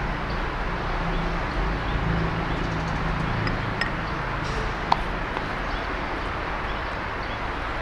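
Steady road and engine noise inside a moving car's cabin, with one short click about five seconds in.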